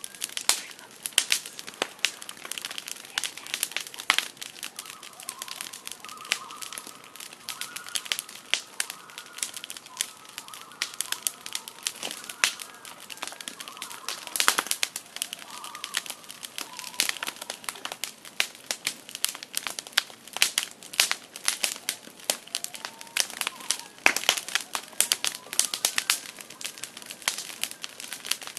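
Wood campfire crackling and popping steadily, with a common loon calling faintly over it in a wavering call from about five seconds in until about seventeen seconds, and again briefly near the end.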